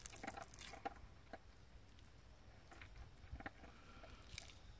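Faint, irregular sticky squelches and small clicks of wet homemade glitter slime being squeezed in the hand and pulled off the fingers; the slime is a failed, runny batch that will not hold together.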